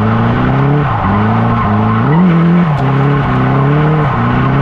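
A small car's engine driven hard on an autotest course, its note climbing and dropping back about five times in quick short bursts, with tyre noise from the sticky tyres gripping and scrubbing underneath.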